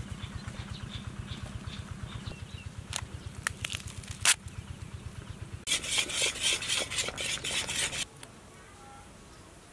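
A small engine running with a fast, even pulse, under a few sharp clicks of a knife cutting into watermelon rind, the loudest about four seconds in. Then, for about two seconds, thick watermelon halwa boiling and spattering loudly in a pan, cutting off suddenly to a faint hum.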